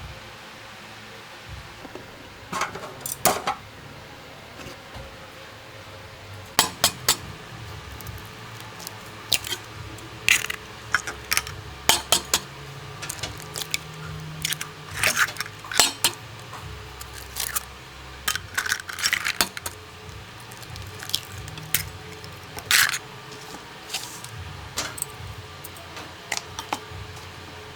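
Dishes and utensils clinking and clattering as they are handled, in irregular short knocks that are densest in the middle of the stretch.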